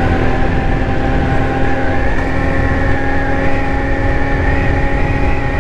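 Ice Bear Hawkeye 150cc scooter's GY6 single-cylinder four-stroke engine running steadily under way, with a low rumble of wind on the microphone. Its pitch creeps up slightly about two seconds in.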